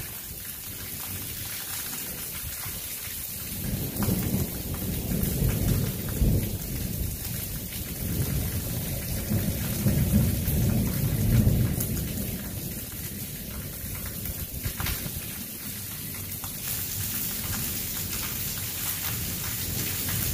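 Heavy rain falling in a steady hiss, with a long rolling rumble of thunder that swells about four seconds in, peaks around ten seconds, and fades away.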